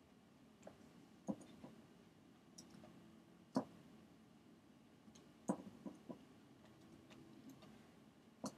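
Computer mouse clicks: about ten sharp single clicks at irregular intervals, a quick cluster of three or four about five and a half seconds in, over faint room hum.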